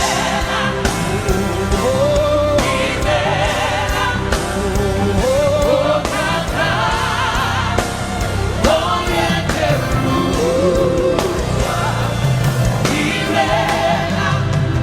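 Live gospel worship music: a band playing under wordless or drawn-out singing, with a choir of voices joining in.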